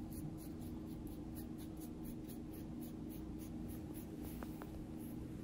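Bristle pastry brush stroking oil paste across a thin sheet of rolled dough, a soft scratchy brushing about three to four strokes a second, over a steady low hum.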